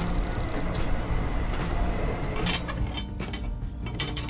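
A steady low engine rumble, with a fast high electronic beeping that stops about half a second in and a few light clicks near the middle.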